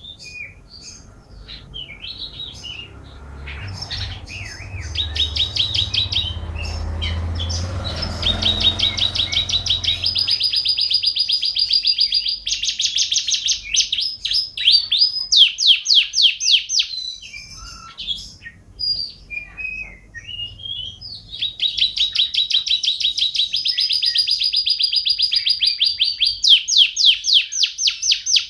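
Domestic canary singing in full song: long, very fast rolling trills of high repeated notes, with a brief break of scattered chirps partway through. A low rumble runs underneath for the first third or so.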